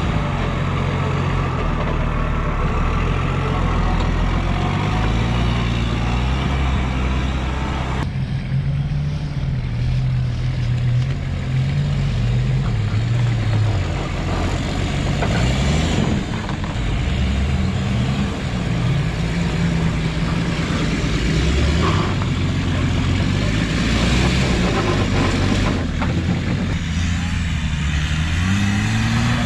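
Nissan Patrol GR off-roader's engine working hard, its revs rising and falling in steps as it drives over rough terrain. The sound changes abruptly about eight and sixteen seconds in.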